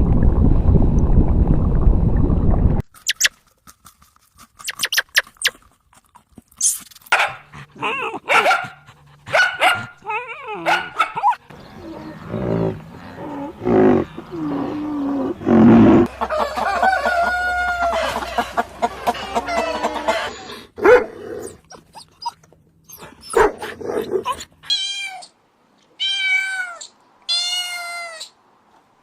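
A run of different animal calls, one recording after another. It opens with a loud, dense rasping noise that cuts off abruptly about three seconds in. Scattered clicks and a string of varied calls follow, ending with four short, arching calls spaced about a second apart.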